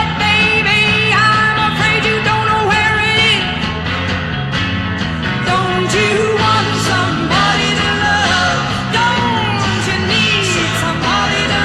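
Rock music: a band with drums and bass and a lead line that slides and bends in pitch, with no clear words.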